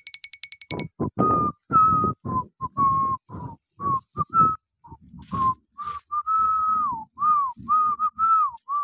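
A rapid run of high electronic pips that stops about a second in, then a whistled tune: a string of short notes, some sliding up or down, with breath noise under them.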